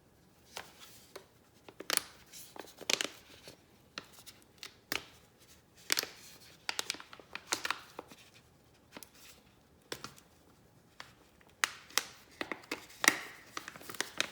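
Hands unwrapping keyboard parts from their packaging: irregular rustling, tearing and light knocks.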